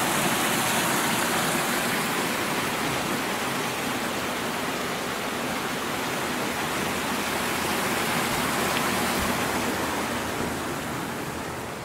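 Spring water gushing out and splashing into a small pool: a steady, loud rush of water that eases slightly near the end.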